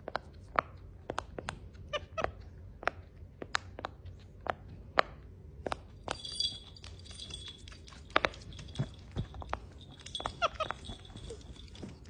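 Silicone pop-it fidget toy bubbles popping under a young monkey's fingers: sharp, irregular pops, about one or two a second. A thin, high squeal comes in twice, about halfway through and again near the end.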